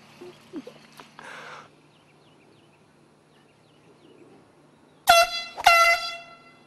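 Air horn blown in two short, loud blasts near the end, the second following about half a second after the first and lasting a little longer. Each blast is a steady, high-pitched blaring tone that starts abruptly.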